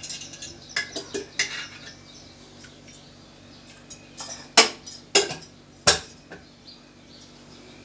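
An iron kadai and kitchen utensils clanking and clinking as they are handled on a gas stove: a few light clinks about a second in, then louder metal clanks between four and six seconds in.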